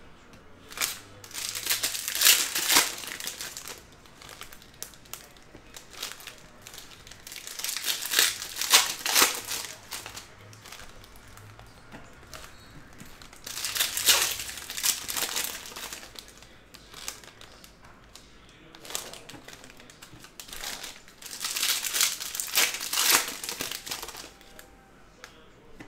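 Hands handling baseball cards and their plastic wrapping, crinkling in four bursts several seconds apart.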